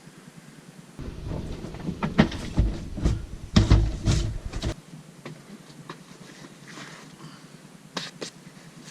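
Rustling, scuffing and knocks of a person shifting and crawling about in a crawl space for a few seconds, then quieter, with two sharp clicks near the end.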